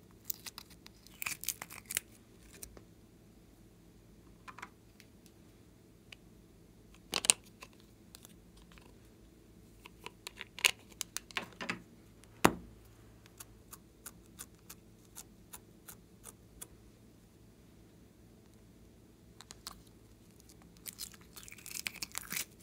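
Plastic clicks and rattles from a gold swan-shaped trinket box as its hinged wings are worked open, in a burst about a second in and again near the end. In between, scattered taps and crackles as clay or slime is handled.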